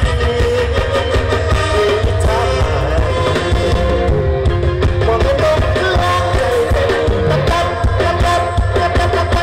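Live Thai mor lam stage band playing loud through a PA, with a male singer singing the melody over heavy bass and a steady drum beat.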